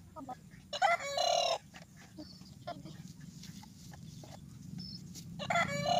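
A chicken calls twice, each call about a second long, once about a second in and again near the end. Faint knocks of a hoe digging into soil lie underneath.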